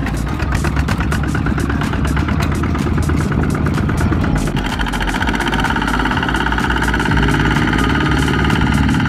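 Single-cylinder diesel engine of a two-wheel walking tractor running with a quick, regular chugging beat; the sound changes about halfway through to a steadier engine note as another tiller works in the mud.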